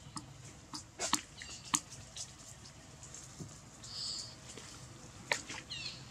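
Scattered light crackles and rustles of dry leaf litter as macaques move over the ground, with a few sharp clicks. There are a couple of brief high chirps near the end.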